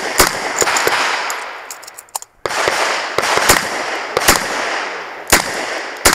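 Smith & Wesson 929 9mm revolver firing a string of shots: one shot just after the start, a pause of about two seconds, then a run of shots about half a second to a second apart.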